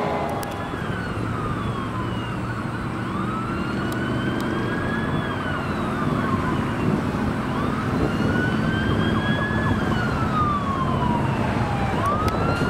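Fire truck siren in a slow wail: the pitch rises, holds briefly and glides back down, about every four to five seconds. Steady highway traffic noise runs underneath.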